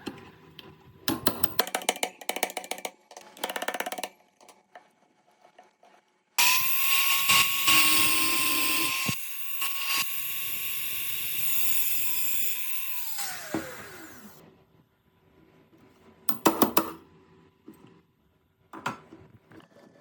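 A high-speed handheld power tool starts abruptly and runs at a steady high whine, with harsh grinding noise over it, strongest for the first few seconds. About halfway through it is switched off and winds down, its pitch falling. Short scraping or clattering bursts come before it and again near the end.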